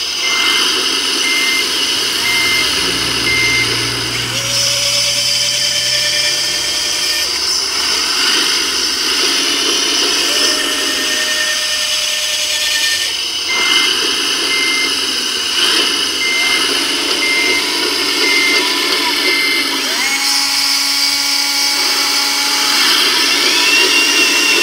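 The electric motors of an RC model Liebherr LR 634 crawler loader whine in spurts as it drives and works its bucket. A reversing beeper sounds twice in runs of short beeps, about one a second: once at the start, and again from about halfway through.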